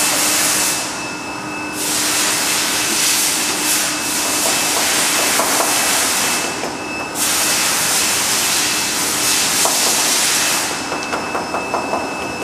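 Loud hiss of rushing air at a paper guillotine's table, which breaks off briefly twice. Near the end the hiss stops and a run of light clicks follows.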